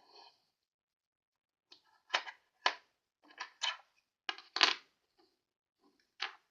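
Small hard objects, toy pieces being handled, giving a string of sharp clicks and knocks, about seven of them, starting about two seconds in; the loudest comes a little past the middle.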